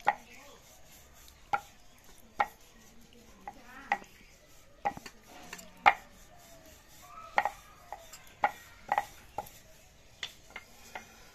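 Wooden rolling pin rolling out dough on a round wooden board, with sharp wood-on-wood clacks coming irregularly about once a second.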